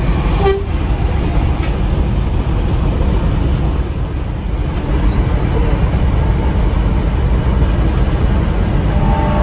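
Steady low drone of a Mercedes-Benz 1626 NG coach's six-cylinder diesel engine and tyre noise, heard inside the cabin while the bus cruises at speed on the highway.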